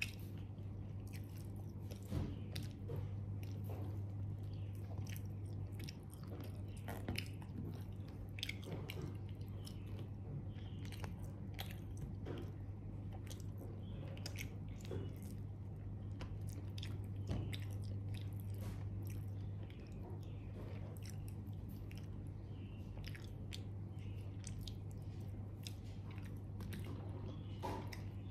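Close-up chewing and biting of crispy fried chicken, with irregular crunches and small clicks of fingers tearing the meat. A steady low hum runs underneath and eases slightly about twenty seconds in.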